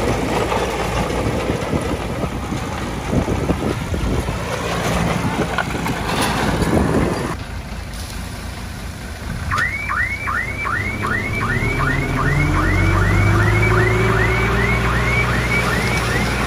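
Heavy diesel machinery running with clanks and knocks. About nine and a half seconds in, a rapid rising electronic chirping alarm starts, about three chirps a second, as a truck engine revs up beneath it, typical of a dump truck's reversing alarm.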